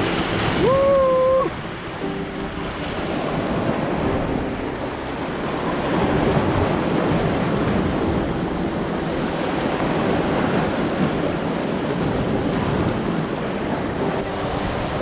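Sea waves breaking and washing over shoreline rocks: a steady surf noise without a break. About a second in there is a short held pitched note.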